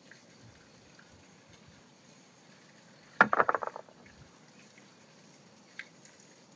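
A brief, loud rattling clatter of kitchenware on a wooden table, several rapid knocks in under a second about three seconds in, then a single light click near the end; otherwise quiet.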